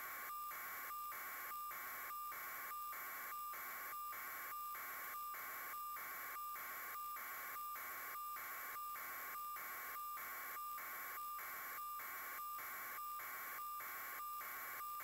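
Electronic static with a high buzzing tone, pulsing evenly about twice a second.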